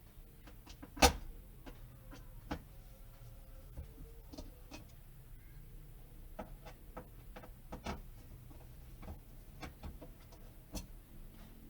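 Scattered light clicks and knocks, with one sharp knock about a second in and another about two and a half seconds in.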